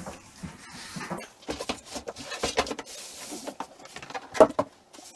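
A cardboard box being handled and opened: scraping and rustling of cardboard and packing, with a sharp knock about four and a half seconds in.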